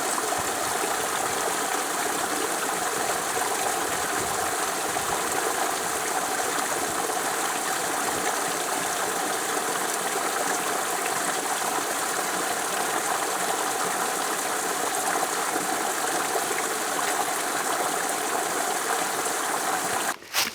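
A steady, even rushing noise with no rhythm, cutting off abruptly just before the end.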